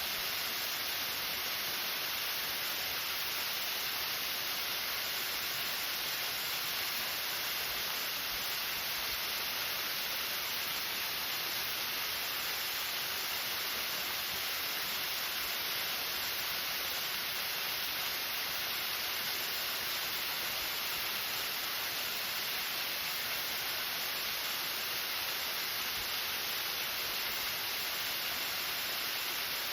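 Gohō Falls waterfall: a steady, unbroken rush of falling water, with a strong hissing high end.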